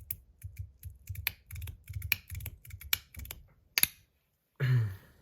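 Stainless steel magnetic EDC fidget slider being slid back and forth by hand, giving a quick, irregular run of sharp clicks as its magnets snap the sliding plates into each position. The clicks stop about four seconds in.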